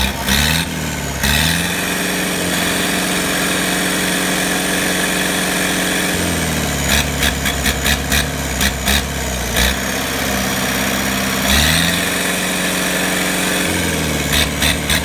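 Yanmar US45 tractor's diesel engine being revved: its pitch rises and holds high for about five seconds, then falls back to a lower speed. At the lower speed there is regular sharp clicking. Near the end the engine revs up again briefly and drops back.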